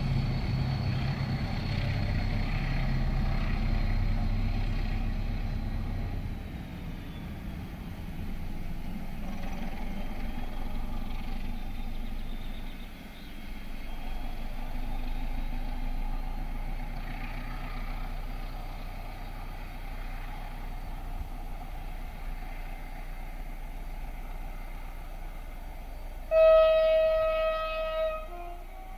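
A diesel-hauled passenger train pulling away: the locomotive's engine and the rail noise fade over the first several seconds, with a thin high whine that slowly drops in pitch. Near the end, a train horn sounds one steady blast of about two seconds. This horn is the loudest sound.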